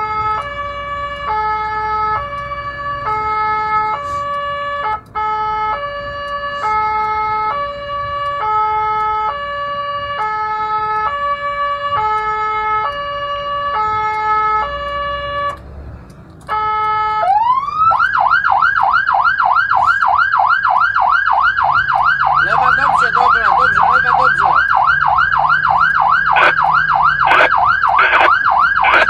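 Fire engine's electronic siren heard from inside the cab. It alternates between two pitches in a hi-lo pattern for about fifteen seconds, cuts out briefly, then sweeps up and switches to a fast yelp that warbles several times a second.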